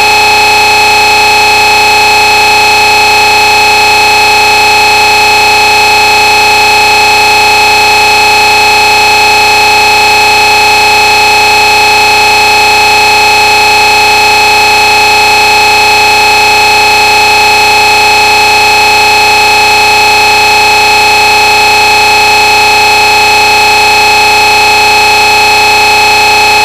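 Loud, distorted electronic drone: a hiss with several fixed tones held at one pitch, unchanging throughout, with no rise or fall.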